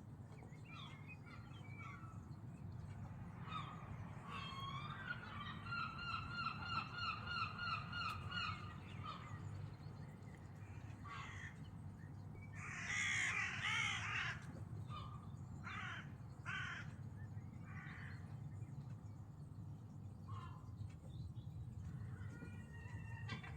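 Gulls calling: a quick run of about a dozen evenly repeated calls, then a louder, wavering burst of several calls at once about halfway through, with single scattered calls around it.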